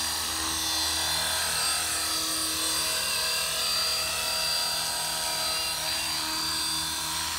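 Electric 450-size RC helicopter in an Airwolf scale body hovering low, its Align 3500 kV brushless motor and rotors running with a steady whir and whine.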